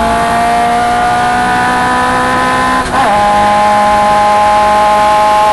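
Galloway Sports 1300 clubman racing car engine pulling hard, its revs climbing slowly. About three seconds in comes a quick gear change, a short dip in the note, and then the engine pulls steadily again.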